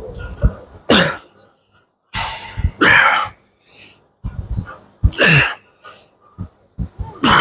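A man's forceful, strained exhalations, four of them about two seconds apart, each with a falling pitch, one per repetition as he pulls down on a cable machine's handles in a heavy set. Short low thumps fall between them.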